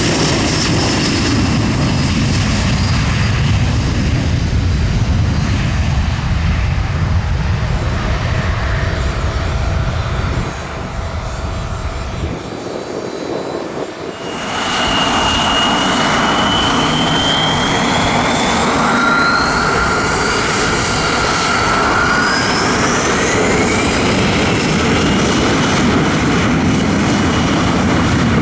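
Turbofan engines of Embraer 175 regional jets on takeoff. First one jet runs at high power, its whine drifting slowly down in pitch. Then, after an abrupt change, a second jet's engines spool up, their whines rising steadily in pitch.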